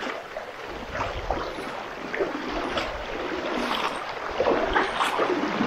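A fairly swift, shallow river current rushing steadily, with splashes and scattered knocks from people wading across it.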